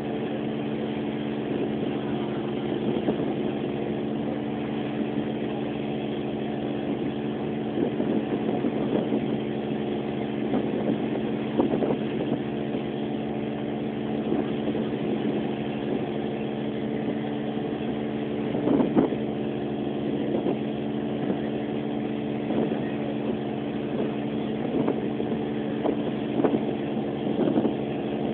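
Boat engine running steadily at a constant speed, a continuous hum of several tones. A few brief knocks stand out, the loudest about two-thirds of the way through.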